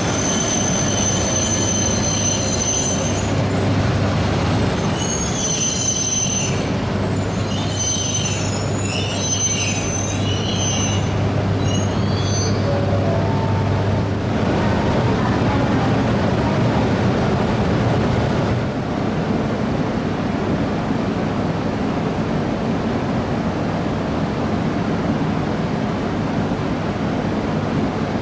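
E5 series Shinkansen creeping slowly along the platform toward a waiting E3 series set to couple, its wheels squealing in high-pitched, wavering tones that stop about twelve seconds in. A steady low hum from the trains runs underneath.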